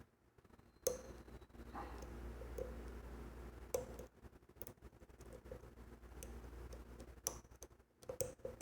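Dimple lock pick and tension wrench working the pins of a Mul-T-Lock Junior, making faint, scattered small metallic clicks a few times over a low steady hum.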